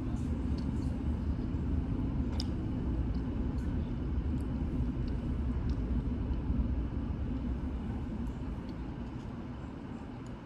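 Low rumble of an airplane flying over, steady at first and easing off over the last few seconds.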